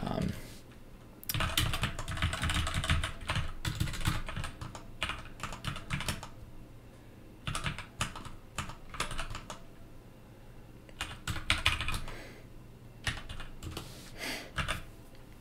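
Typing on a computer keyboard: several quick runs of keystrokes with short pauses between them.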